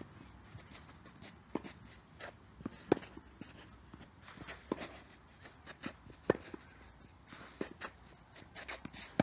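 Tennis rally on a clay court: sharp racket-on-ball hits about every second and a half, some loud and near, some fainter from the far end, with softer knocks and shoe scuffs on the clay between them.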